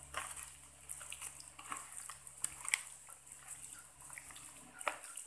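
A hand squishing and kneading raw chicken in a wet spice-and-mustard-oil marinade in a plastic container: irregular sticky squelches and small wet smacks. A steady low hum runs underneath.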